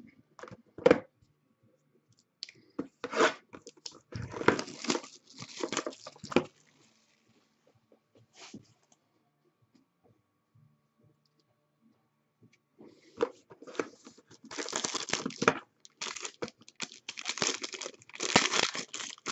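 Foil trading-card pack torn open and crinkled by hand, in rustling bursts with a quiet stretch of several seconds in the middle, the densest tearing near the end. A single knock about a second in.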